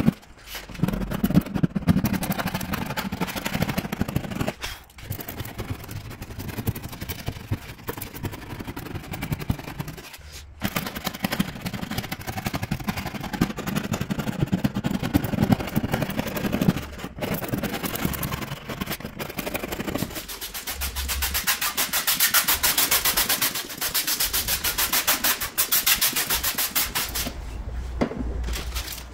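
A small plastic scraper scratching and picking at delaminating clear coat on a car's painted body panel: irregular dry scratching with small crackling snaps as flakes lift. Near the end it turns into fast, even back-and-forth scraping strokes.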